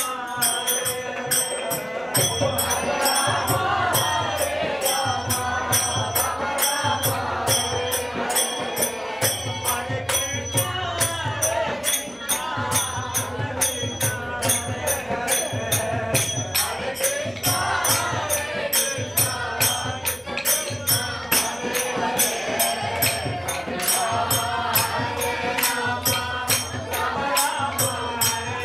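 Group devotional bhajan singing, voices chanting a melody over a steady beat of small hand cymbals and a regular low pulse.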